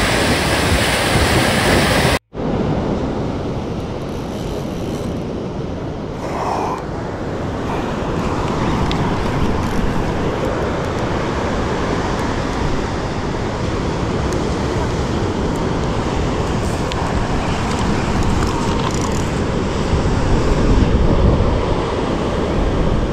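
Wind buffeting the microphone over the rush of breaking surf, as a steady noisy wash. The sound drops out for an instant about two seconds in.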